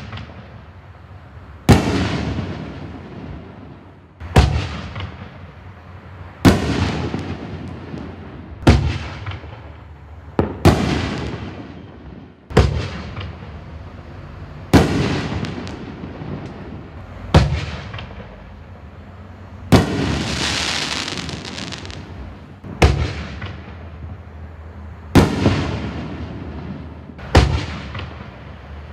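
60-gram canister firework shells bursting one after another, a loud boom about every two seconds, each dying away in a rumbling tail. About twenty seconds in, one burst is followed by a couple of seconds of steady hiss.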